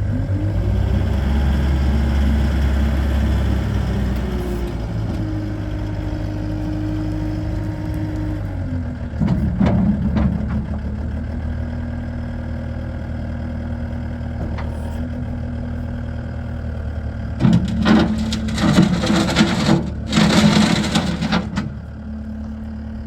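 Takeuchi TL8 skid steer's diesel engine running, its pitch rising about a second in and dropping back after several seconds. Louder, rougher stretches come about nine seconds in and again for several seconds near the end.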